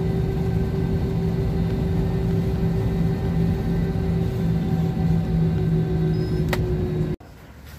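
Airliner cabin noise: a steady engine and air-system drone with a low hum that holds one pitch, cut off abruptly near the end. A single short click sounds just before the cut.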